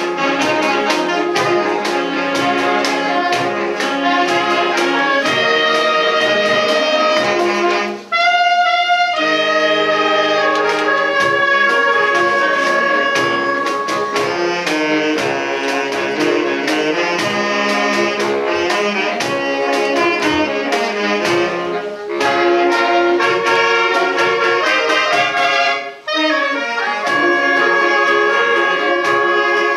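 Saxophone ensemble playing a piece in several parts over a steady beat. The playing breaks off briefly about eight seconds in and again near the end before going on.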